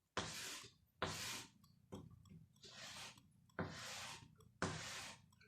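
About six short scratchy strokes of a writing tool on a writing surface, roughly one a second, as lines are drawn one after another.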